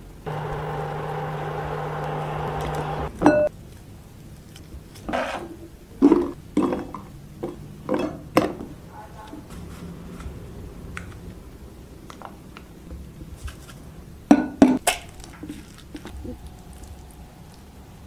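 A steady electric hum for about three seconds, then a run of clinks and knocks of dishes and utensils, with another cluster of knocks a little before the end.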